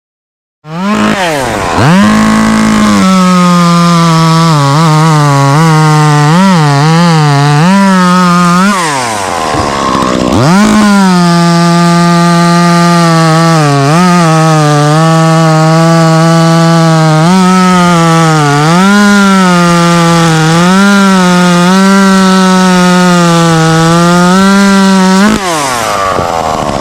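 Chainsaw running at high revs while cutting wood, its pitch sagging and recovering again and again as the chain loads up in the cut. About nine seconds in it drops off and then revs back up, and it drops off again near the end.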